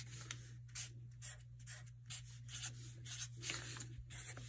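Black Sharpie marker scratching on paper in short, quick strokes, drawing small snowflakes and dots, over a low steady hum.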